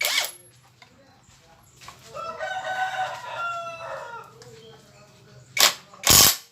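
A rooster crows once, a single long call of about two and a half seconds in the middle. There are loud sharp knocks at the start and twice near the end, over a faint steady low hum.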